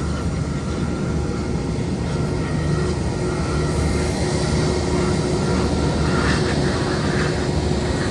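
Jet airliner engines running at taxi idle: a steady rumble and hiss with a thin steady whine, growing a little louder and brighter about six seconds in.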